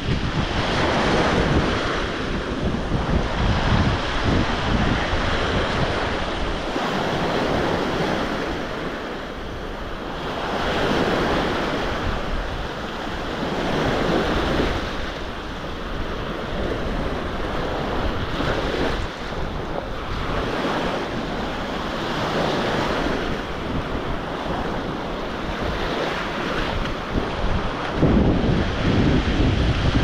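Black Sea surf washing onto the beach, swelling and falling back every few seconds, with wind buffeting the microphone as a low rumble that is strongest near the end.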